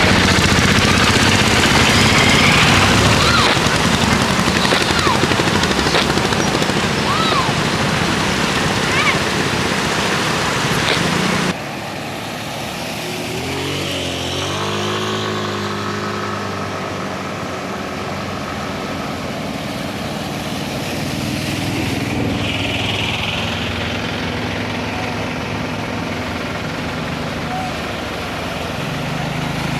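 Autorickshaw engines running under a loud rushing noise. About a third of the way in the sound changes abruptly, and an engine revs up, wavers, then settles to a steady run.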